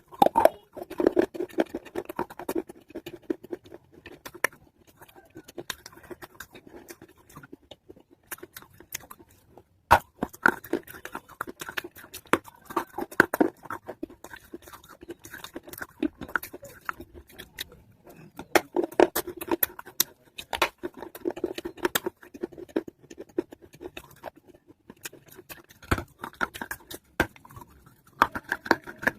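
Close-up chewing and crunching of wetted pieces of an earthen clay pot (matka), dense crackly clicks coming in several bouts with short pauses between them.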